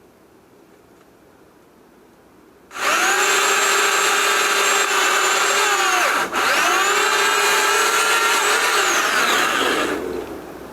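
Pole chainsaw's motor running with a high whine, starting abruptly about three seconds in, cutting out for a moment near the middle, then running again before its pitch falls away and it stops.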